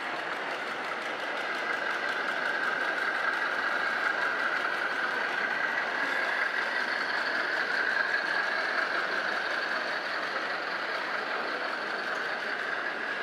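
Radio-controlled model heavy-haul truck driving slowly with a loaded low-loader trailer: a steady whine that gets a little louder in the middle as the truck passes close, over a background hum.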